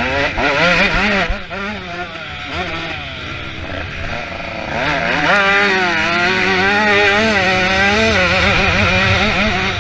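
Motocross bike engines revving, their pitch rising and falling over and over as the throttle is worked. A louder, more sustained engine note takes over about halfway through.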